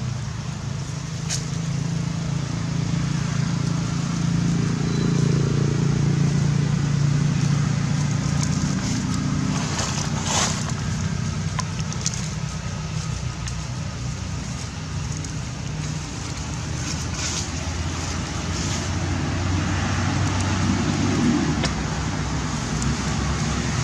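A steady low outdoor rumble with a few faint clicks, and a brief hiss about ten seconds in.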